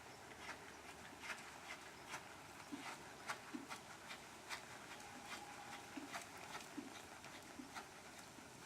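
Faint hoofbeats of a ridden horse: scattered sharp clicks, and from about a third of the way in a low, even beat a little faster than once a second, the rhythm of its stride.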